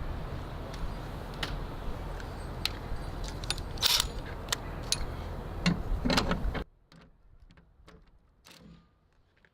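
Short metallic clicks and clinks from a hand rivet nut tool being worked to set a rivet nut in the fender, over a steady background hiss. The hiss cuts off suddenly about six and a half seconds in, and only faint clicks follow.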